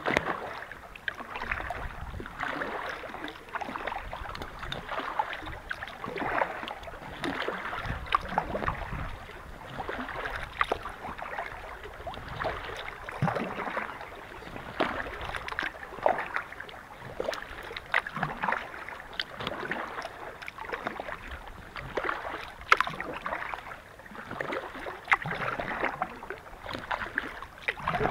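Kayak paddle strokes in calm water: the blades dip and splash, swelling every second or two, with small splashes and drips between strokes.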